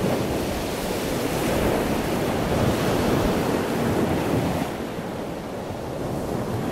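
Ocean surf breaking: a steady rushing wash of waves that swells in the middle and grows duller near the end.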